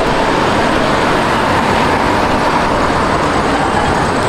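Loud, steady rumble of road traffic, with a faint whine running through it.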